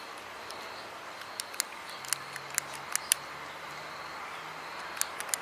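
Gas pipe lighter being clicked again and again, about ten sharp clicks in small groups, without catching: the lighter fails to light.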